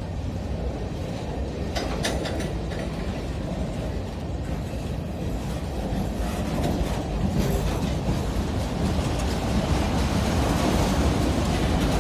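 Freight cars of a CSX train rolling past close by on street-running track: a steady rumble of wheels on rail with a few brief metallic clicks about two seconds in, growing slowly louder in the second half.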